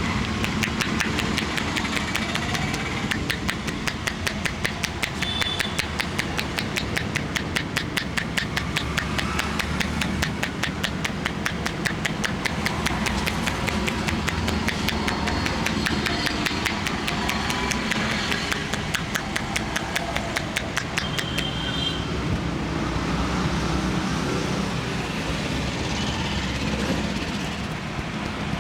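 Rapid, even hand tapping of a head massage, about five strikes a second, over steady street traffic noise. The tapping thins out about three quarters of the way through.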